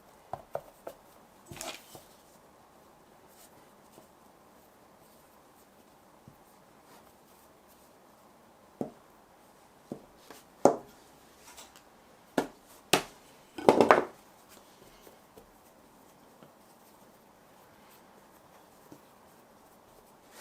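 Scattered kitchen handling sounds: short, sharp taps and knocks of utensils or a dish, with long quiet gaps. The loudest is a quick cluster of knocks about two-thirds of the way through.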